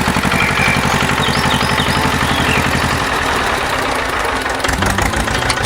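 Tractor engine running steadily with a rapid, even chugging.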